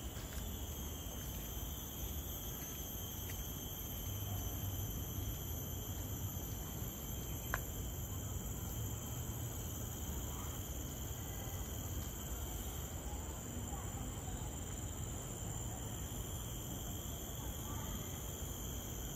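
Steady, high-pitched drone of insects, several tones held at once, over a low background rumble; a single sharp click about seven and a half seconds in.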